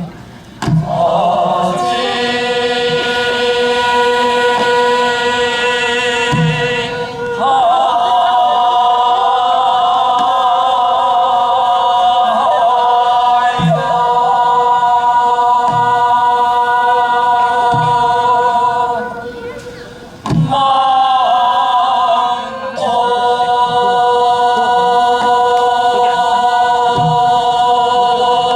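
Sijochang, Korean classical sijo singing: long drawn-out vocal notes held for several seconds with a slow wavering vibrato, each phrase broken by a short breath pause. A few soft low thuds sound under the singing.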